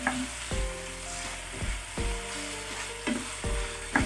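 Raw chicken pieces sizzling in hot oil in a frying pan, a steady hiss, while a wooden spoon stirs them.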